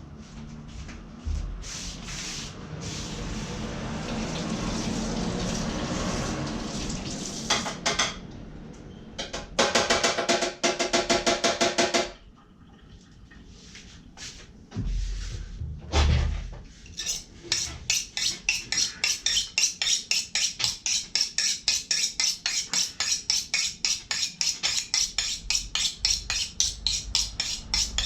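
Victorinox Swibo boning knife being honed on a Victorinox chaira honing steel: a fast run of metal-on-metal strokes, then from about two-thirds of the way in a long, very even train of strokes at about four a second. Before that there are handling noises and a dull thump.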